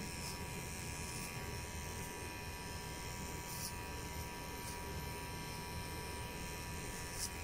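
Electric hair clippers buzzing steadily as they cut hair at the back of the neck and behind the ear.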